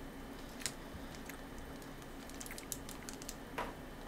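Small plastic wrapper of a soft fruit candy crinkling and clicking between the fingers as it is unwrapped, in scattered short crackles that come more often after about two seconds.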